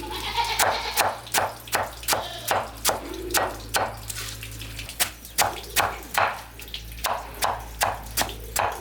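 Repeated sharp strikes in a steady rhythm, about three a second, like chopping with a blade, with a faint animal call near the start.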